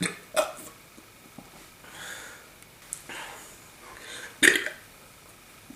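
A man burping the alphabet: a string of short voiced burps, each shaped into a letter, the loudest about four and a half seconds in.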